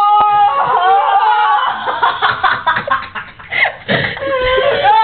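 Girls' voices: a long, high-pitched shriek that ends just after the start, then excited laughter in quick bursts with half-words.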